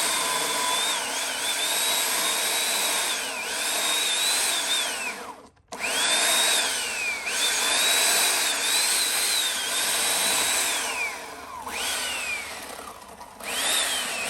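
Corded electric chainsaw cutting into a tree trunk. The high motor whine dips in pitch as the chain bites into the wood. The trigger is let off twice, about five seconds in and again about eleven seconds in, and the motor winds down before speeding back up.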